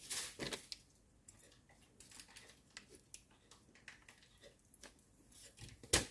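Quiet eating and food-handling noises: scattered small clicks and soft smacks, with one sharp knock near the end as something drops.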